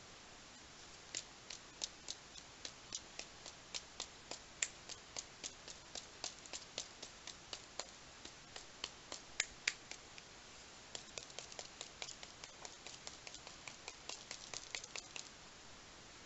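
Small sharp taps of a paintbrush being knocked against a finger, spattering white paint onto the page as stars: about three taps a second, a short pause, then a quicker run of taps.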